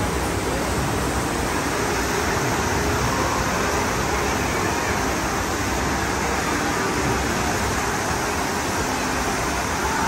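Steady, even rushing noise of a large indoor water-park hall, with no distinct events.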